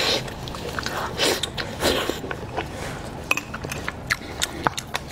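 Close-up eating sounds: biting into and chewing spiced sheep's head meat, with wet smacks and a run of sharp mouth clicks in the second half.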